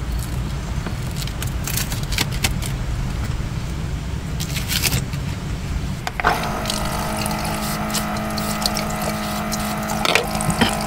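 A knife cutting through a crisp tortilla on a wooden board, a few sharp clicks over a low rumble. About six seconds in, a rechargeable faucet water pump starts with a steady motor hum, and water runs from its spout into a stainless steel sink.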